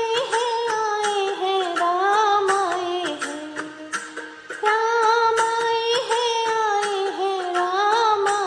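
A woman singing a Hindi devotional bhajan, holding long wavering notes, with a break of about a second and a half midway before the phrase starts again; light percussive taps accompany her. The song is mixed with an 8D panning effect.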